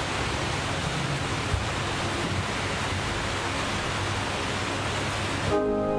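A steady, even hiss of background noise with no distinct events. It cuts off abruptly about five and a half seconds in as music with sustained held notes comes in.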